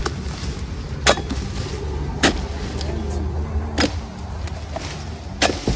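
A steel chisel blade (dodos) on a long pole chopping into the base of oil palm fronds: four sharp chops about a second and a half apart, cutting the fronds away to reach the ripe fruit bunches.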